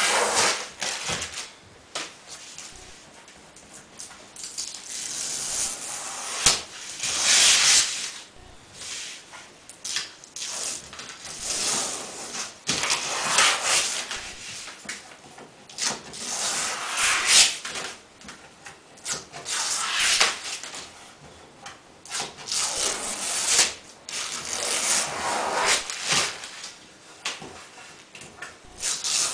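Application tape being peeled off a vinyl cornhole wrap while hands rub the vinyl down: repeated papery, rustling swishes and rips, coming irregularly every few seconds.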